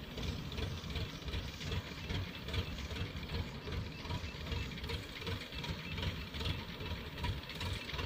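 Kubota DC70 combine harvester's diesel engine running steadily with a low, rough throb as the machine cuts rice in soft, boggy ground.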